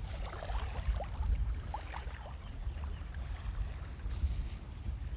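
Wind rumbling on the microphone, with scattered small splashes and trickles of shallow seawater around people wading and reaching into the water.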